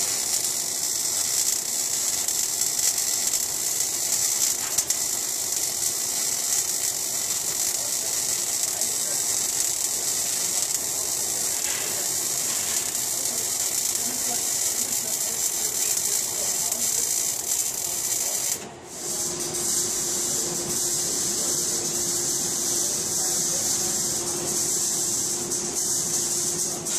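MAG (gas metal arc) welding arc running on a steel fillet weld, a steady, dense crackling hiss. It breaks off briefly a little over two-thirds of the way through, after which a steady hiss with a low hum carries on.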